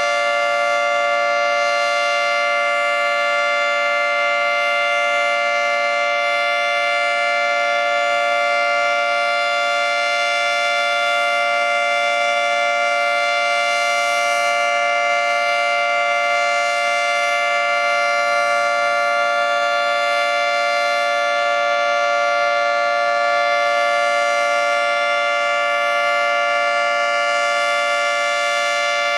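Federal Signal 2T22 dual-tone outdoor warning siren sounding its steady alert signal for a monthly tornado-siren test. The chord of two pitches holds steady and loud, with no rise or fall.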